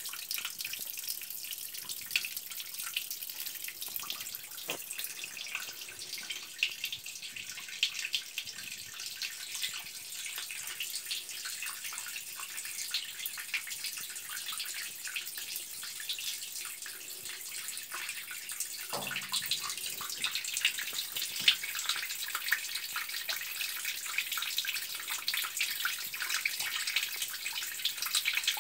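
Water leaking from a pipe joint, spraying and dripping onto the wet ground below: a steady high hiss with a fine crackle of drops. A brief low knock comes about two-thirds of the way through.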